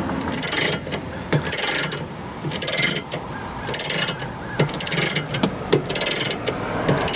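Ratchet handle on a 2-ton scissor jack worked back and forth, the pawl clicking rapidly on each stroke, about one stroke a second, turning the jack's screw.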